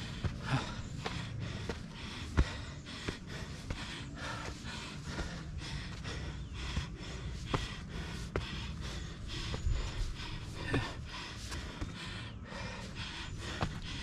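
A hiker breathing hard and fast in a rhythmic pant while climbing a steep uphill trail, with occasional sharp clicks.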